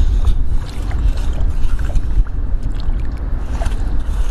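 Wind buffeting the microphone, a steady low rumble, with faint scrapes and splashes of a small metal hand rake and a hand digging through wet sand under shallow water.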